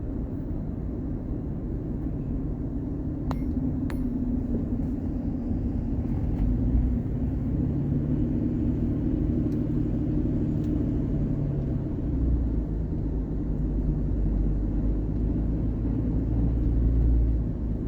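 Vehicle on the move: a steady low rumble of engine and road noise, with two faint clicks a little over three seconds in.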